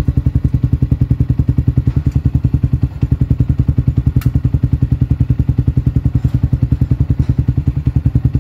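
Yamaha Sniper 155R's single-cylinder four-stroke engine idling steadily through an MVR1 aftermarket exhaust pipe, an even putter of about twelve exhaust pulses a second.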